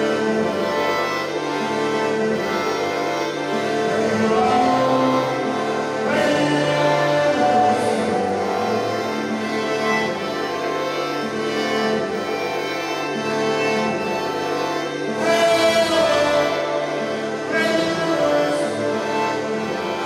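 Music from a live performance: layered, sustained pitched tones held over one another, with a few notes gliding in pitch and a brighter, breathier swell about three quarters of the way through.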